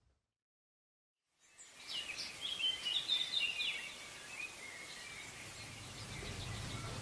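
Dead silence for about a second and a half, then birdsong fades in over a steady hiss: bursts of high, quick chirps and trills that thin out towards the end. It is a theatre sound cue played in the blackout between scenes.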